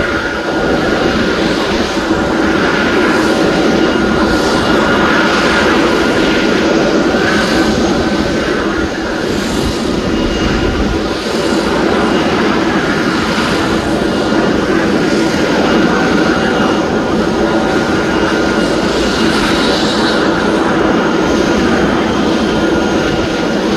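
Air-ambulance helicopter running on the helipad: a loud, steady turbine whine over rotor and engine roar, with no change in pitch.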